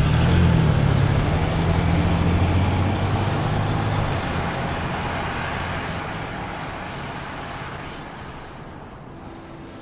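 Motor vehicle engine and road noise, loud at first with a low steady engine note, then fading away steadily over several seconds.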